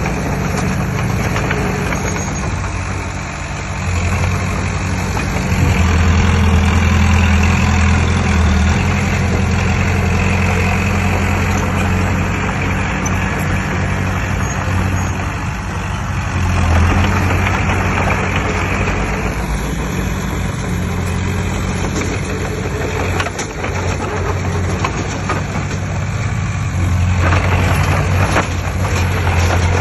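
Heavy diesel engine of earthmoving machinery running with a low drone that swells louder and eases off several times as the load changes.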